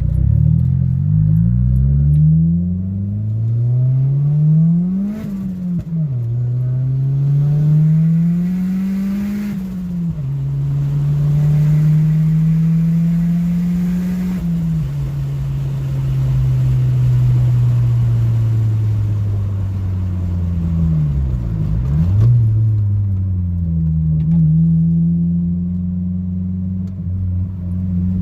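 Turbocharged Honda Civic D15B engine accelerating through the gears: the engine note climbs three times, dropping at each upshift about five, ten and fifteen seconds in, then eases slowly down, dips briefly a little past twenty seconds, and settles to a steady cruise.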